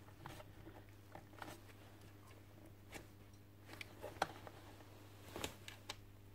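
Faint handling sounds of wires and a plastic strip connector being pushed back into a site transformer's case: scattered small clicks and taps, the sharpest a little over four seconds in, over a steady low hum.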